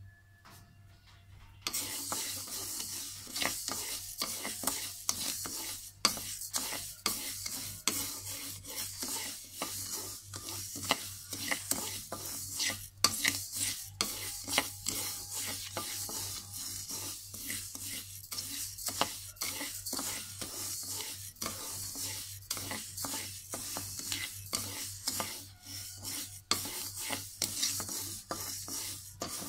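A wooden paddle stirs and scrapes dry raw sticky rice around a black wok, a rapid run of rough scraping strokes that starts about two seconds in. The grains are being dry-roasted over a low flame for khao khua (toasted rice powder).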